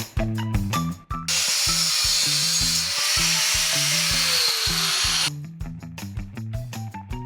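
A power tool working on metal, a loud hiss with a motor whine, starts about a second in, runs about four seconds with its pitch falling near the end, and stops abruptly. Background music with a steady beat plays under it.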